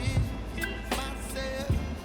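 Background music with a steady beat and a sung or played melody.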